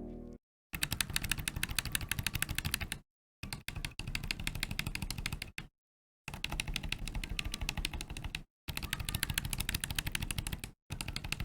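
Fast typing on a mechanical keyboard fitted with Holy Panda X tactile switches: rapid, dense keystroke clacking in runs of two to three seconds, each broken off by a sudden short silence.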